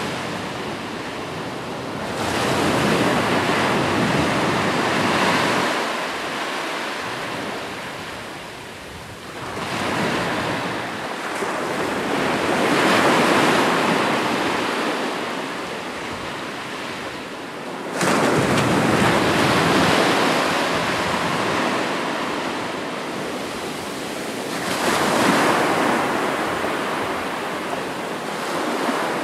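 Ocean surf: waves breaking and washing ashore, the rush of water swelling and fading every several seconds, with one wave coming in abruptly about two-thirds of the way through.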